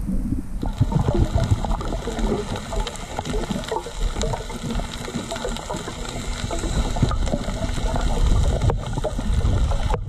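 Underwater ambience picked up by an action camera in its housing: a steady low rumble of moving water thick with small crackles and clicks, with a hiss joining about half a second in.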